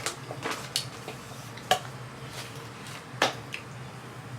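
Scattered sharp clicks and light taps of small objects being handled on a table, the loudest two a little under two seconds in and about three seconds in.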